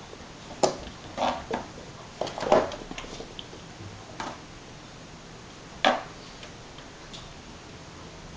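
A small bell being knocked and jostled by a pet: irregular short clinks and knocks, several in quick succession in the first three seconds and a louder single knock about six seconds in, with hardly any ringing after each.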